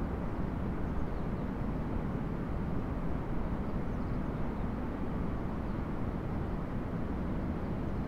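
Steady low outdoor rumble with no distinct sound events.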